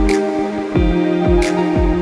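Background electronic music with a steady deep beat and held chords.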